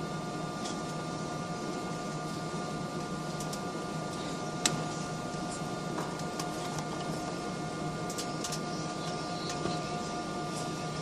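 Steady drone of an airliner's engines heard inside the passenger cabin: an even hiss with a few held tones, and a sharp click about five seconds in.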